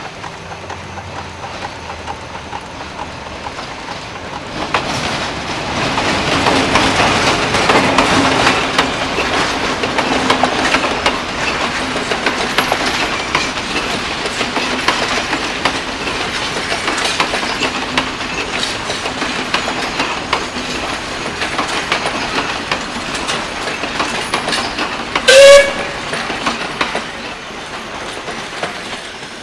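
Steam railway crane's engine working: a continuous clattering of machinery with a steady hum underneath, which sets in about four seconds in. One short, loud whistle toot sounds near the end.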